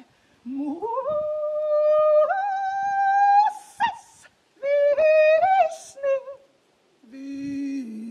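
Wordless singing: a voice slides up into long held notes, with short breaths between phrases. Near the end it settles on a lower held note.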